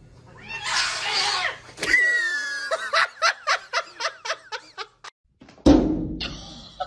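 A person laughing in a quick run of short 'ha' bursts, about two to three a second, after a short hissing noise. A loud thump sounds near the end.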